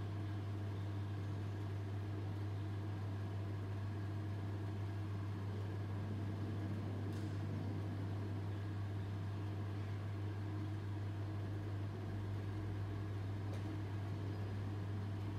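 A steady low hum with a faint hiss behind it.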